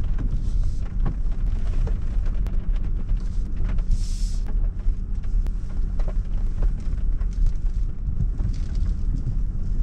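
Land Rover crawling off-road on hill descent control over muddy, rutted ground at walking pace: a steady low rumble with scattered clicks and knocks, and a brief hiss about four seconds in.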